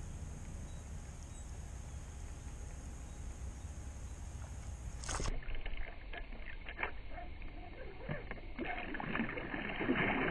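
A steady low rumble, then small clicks and water noise around a kayak hull during a lure retrieve. About ten seconds in comes a louder splash as a bass swirls at the spinnerbait at the surface beside the kayak.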